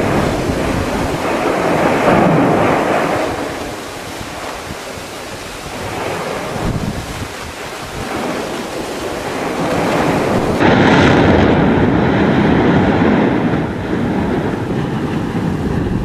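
Mount Yasur erupting: a loud, continuous rushing roar of ash and gas blasting from the vent. It swells about two seconds in and again from about ten seconds in, with wind buffeting the microphone.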